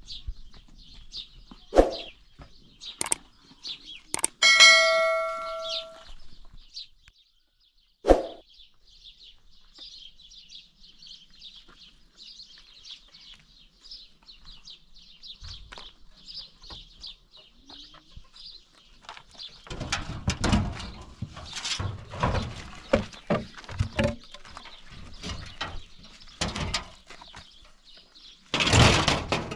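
Steady high chirping from wildlife, with a bell-like chime a few seconds in. Later come scattered knocks and scuffs, and near the end a loud scrape as a wooden plank door is pushed open.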